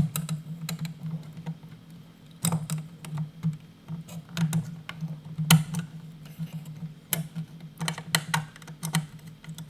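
Irregular small clicks and taps of a small screwdriver and a stripped ground wire being worked onto the ground terminal screw of a pump controller, over a steady low hum.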